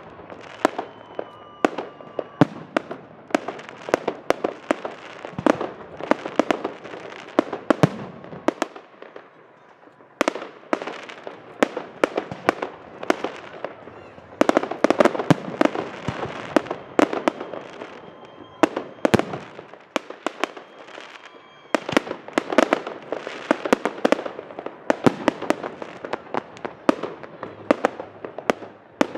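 Fireworks display: aerial shells and rockets bursting in rapid, irregular bangs and crackles, with brief lulls about nine and twenty seconds in.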